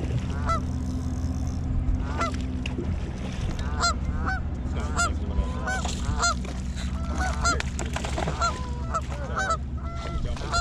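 Geese honking over and over, a few calls at first and a dense run of honks from about two seconds in, over a steady low motor hum.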